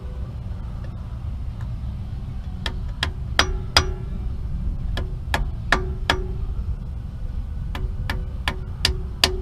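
A hammer tapping a new pinion seal into the rear differential housing of a 2006 Jeep Commander, driving it in until it bottoms out. The sharp metallic taps ring briefly and come in runs of about four, a little under half a second apart, with short pauses between runs, over a steady low rumble.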